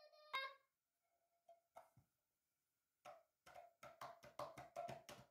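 A young child's voice, faint: a short sound just after the start, a near-silent stretch, then a quick run of short, pitched syllables through the second half.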